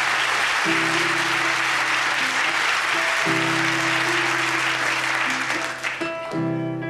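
Studio audience applause and laughter over music with low, held chords that start again about every two and a half seconds. The applause dies away about six seconds in, leaving the music.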